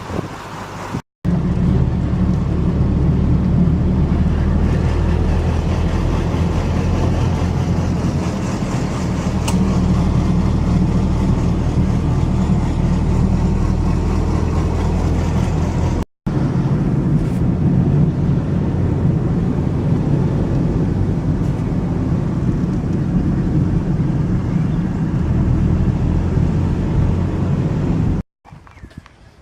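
A car driving, with a steady, loud rumble of engine and road noise. It comes in three stretches, each cut off abruptly by a brief gap.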